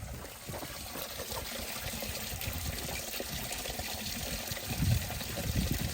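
Steady trickling and pattering of water, with a low bump about five seconds in.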